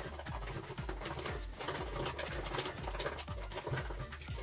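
Wet scraping and squishing as fingers stir a thick glue and shaving-foam slime mixture in a bowl, over background music with a steady beat.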